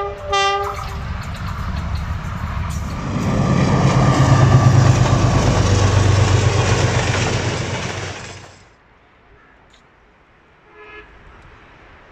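A diesel locomotive horn sounds briefly, then a GEU-20 (GE U20C) diesel-electric locomotive passes close with a loud deep engine drone and rushing wheel and rail noise, which cuts off suddenly about eight and a half seconds in.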